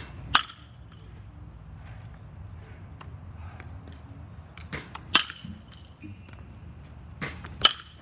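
A baseball struck three times by a metal bat in batting practice: each hit is a sharp ping with a brief ring, and each comes just after a fainter click. The first hit falls at the start, the other two near the end, about two and a half seconds apart.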